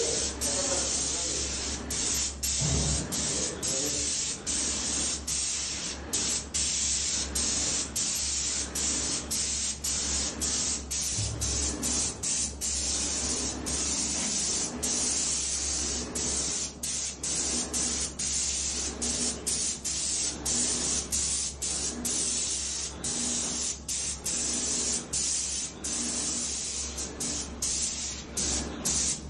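Wagner airless paint sprayer spraying paint onto a wall: a steady, loud hiss from the spray gun, broken by many brief dips, over a low steady hum.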